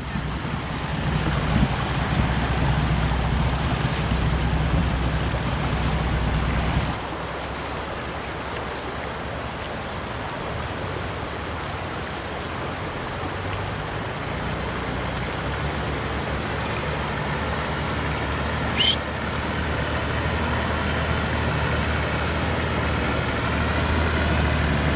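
Nissan Patrol GU ute's engine running at low revs under load as it crawls along towing a camper, with a steady hiss of noise over it. The sound changes abruptly about seven seconds in, and one brief sharp sound comes a little past the middle.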